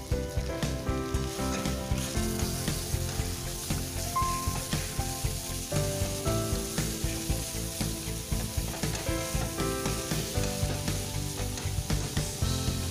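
Ground beef sizzling as it fries in hot oil in a stainless steel pan, stirred and broken up with a wooden spatula. Steady music tones play underneath.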